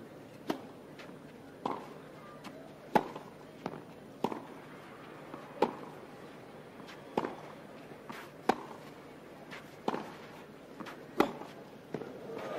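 Tennis ball struck back and forth by rackets in a baseline rally on a clay court: about nine sharp hits, one roughly every second and a quarter, with fainter taps between them.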